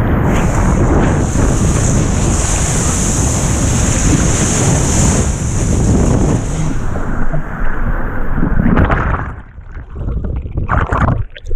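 Loud, steady rush of wind and water spray on a surfboard-mounted action camera while it rides a wave. About nine seconds in, the sound drops out and turns muffled as the camera goes under the water, followed by scattered splashes as it comes back up near the end.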